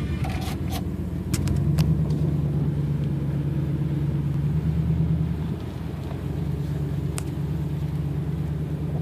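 Car engine and road noise heard from inside the cab, a steady low rumble that swells slightly about a second in and eases about five and a half seconds in. A few sharp clicks come in the first two seconds and once more about seven seconds in.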